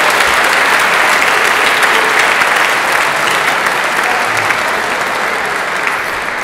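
Audience applauding, a dense steady clatter of many hands clapping, easing slightly near the end.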